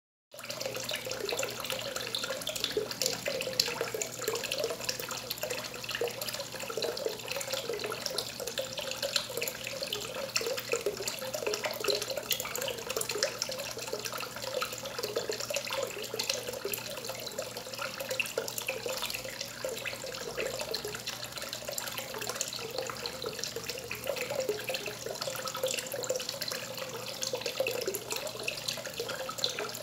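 A thin stream of water falling from a pipe spout into a fish pond, splashing and bubbling steadily, like a running tap.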